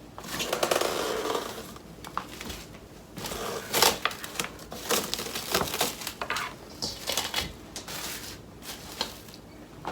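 Kitchen handling noise: plastic wrap crinkling over a bowl of bread dough for a second or so, then a string of scattered knocks and clunks as the covered bowl is set into the oven.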